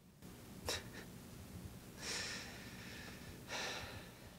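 A faint click about 0.7 s in, then two short breathy exhalations through the nose from someone stifling a laugh.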